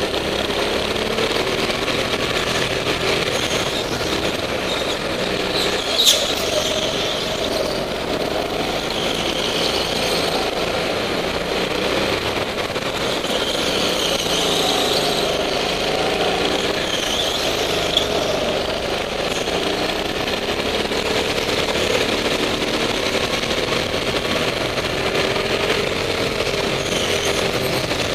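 Rental go-kart engine running hard, its pitch rising and falling through the corners. Tyres squeal on the smooth concrete floor several times, and there is a sharp knock about six seconds in.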